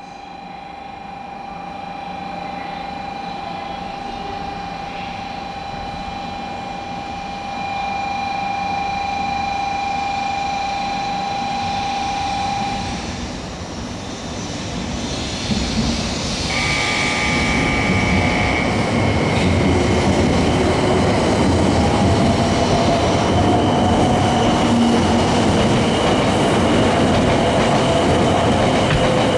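500 series Shinkansen train pulling out of a station: a steady tone sounds for about the first half, then the running noise of the train builds and grows louder as it gathers speed, with wheels clicking over rail joints.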